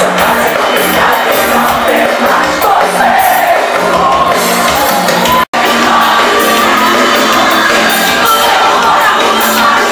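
Live band music over a concert sound system with a large crowd singing along, shouting and cheering; the sound drops out for a split second a little past halfway.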